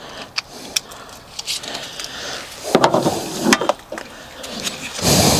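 Handling noise from hand work on parts: scattered clicks and light knocks, a stretch of rubbing about three seconds in, and a louder rustle near the end.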